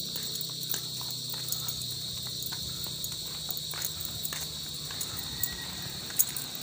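Insects trilling steadily at a high pitch, with a faint low hum underneath and scattered small clicks and taps.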